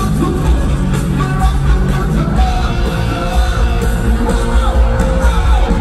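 Loud live rock band playing, heard from the audience: drums, bass and electric guitars with a singer, and a long held note in the second half.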